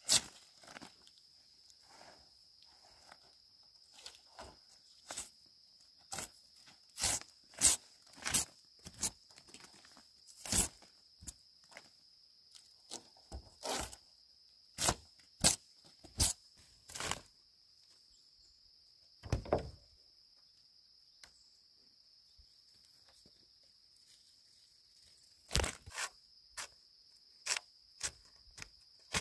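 Insects chirring steadily at one high pitch, with irregular sharp knocks and crunches throughout, thickest between about seven and seventeen seconds in and again near the end, and one longer, lower scrape about two-thirds of the way through.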